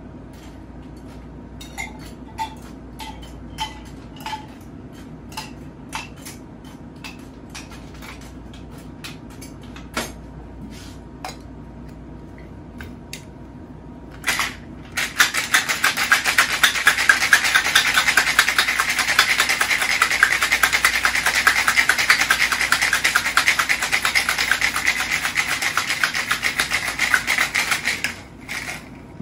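Scattered single clinks, about one every half second, as ice goes into a cocktail shaker. About fifteen seconds in the shaker is shaken hard for some thirteen seconds, the ice rattling fast against the tin, and it stops just before the end.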